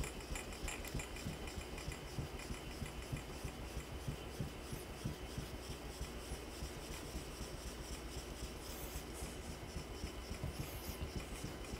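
Steel knife blade rubbed back and forth on a soft Suita Japanese natural whetstone, a faint, rhythmic scraping of repeated strokes, polishing the blade.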